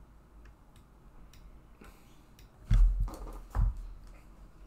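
A few faint, light clicks, then two dull thumps a little under a second apart near the middle, with a low background hum.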